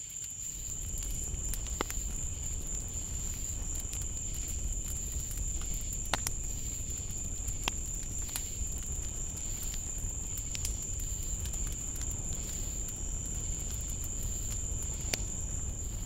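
Night insect chorus: a steady high-pitched drone over a constant low rumble, with scattered faint clicks.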